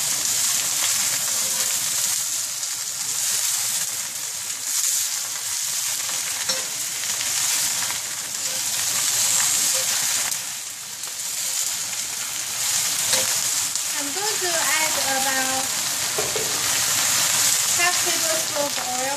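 Napa cabbage sizzling in hot vegetable oil in a cast-iron skillet while it is stir-fried and turned with a spatula. The hiss is steady and swells and eases as the leaves are moved.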